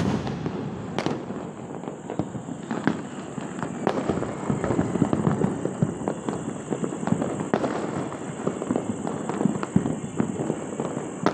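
Fireworks and firecrackers going off on all sides: one sharp bang at the start, then steady crackling of many small pops with a few louder bangs here and there.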